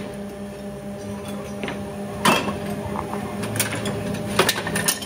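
Workshop machinery running with a steady hum, with a few sharp knocks, the loudest about two seconds in, then two more near the end.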